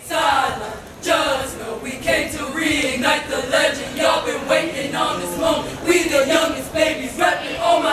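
A line of seven sorority new members chanting in unison, unaccompanied, in a rhythmic run of syllables.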